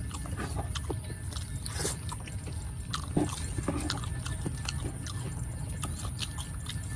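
Close-up eating sounds of two people eating ketoprak with fried tofu and shrimp crackers: chewing and crunching mixed with irregular clicks and scrapes of a spoon and fork in the food, over a steady low rumble.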